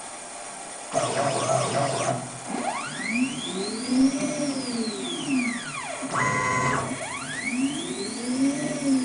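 Stepper motors of a homemade CNC table driving the gantry through its moves, whining in a pitch that rises and then falls as each move speeds up and slows down, twice. There is a rougher, noisier stretch about a second in, and a short steady hum of several tones just after six seconds.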